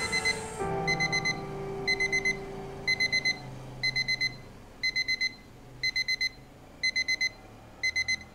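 Electronic bedside alarm clock beeping in quick sets of four, about one set a second, cut off near the end as it is switched off.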